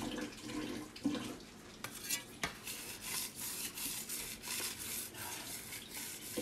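Water running from a kitchen faucet as hands are washed under it, with scattered light clinks and knocks of kitchenware.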